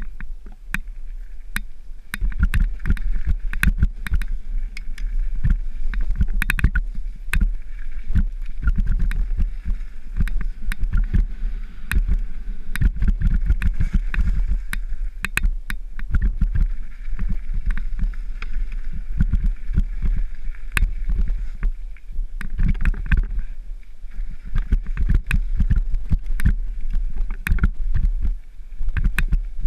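Mountain bike rattling and clattering down a rough dirt downhill trail: a dense, irregular stream of knocks and rattles as it runs over bumps, with a steady low rumble of wind on the camera's microphone.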